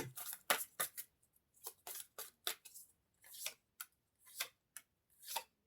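Tarot cards being handled: a dozen or so light, irregular clicks and snaps of the card stock, with quiet gaps between them.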